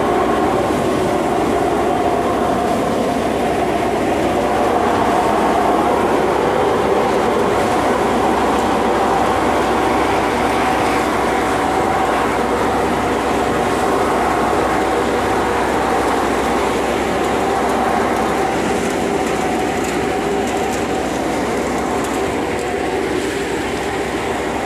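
Tractor-driven paddy threshing machine running steadily while threshing rice, a loud, unbroken mechanical hum with a steady pitch.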